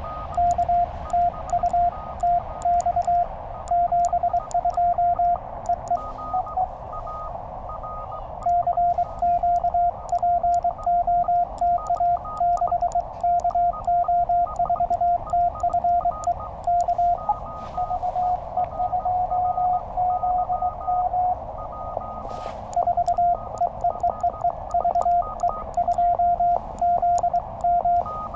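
Morse code from a Penntek TR-35 QRP transceiver: a steady-pitched CW tone keyed on and off in dots and dashes over receiver hiss, with faint clicks from the paddles. About two-thirds of the way through, a softer, steadier passage is heard, likely the other station's signal.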